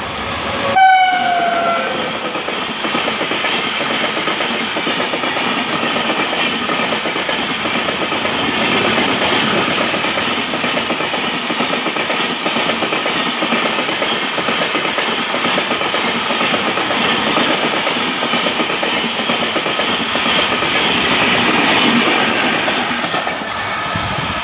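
An Indian Railways express hauled by a WAP-7 electric locomotive passes at speed. A short horn blast sounds about a second in, then the coaches go by as a long, steady rush of wheels on rail that eases off near the end.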